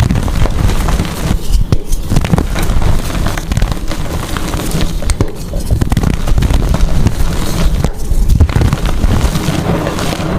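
Blocks of gym chalk being crushed and crumbled, a dense, continuous run of crunching crackles.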